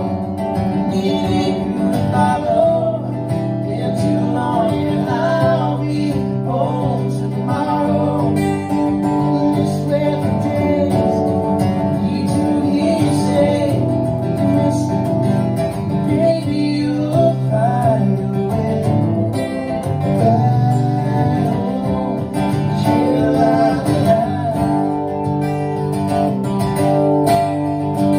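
Live music from two strummed acoustic guitars, with a voice singing over them at times.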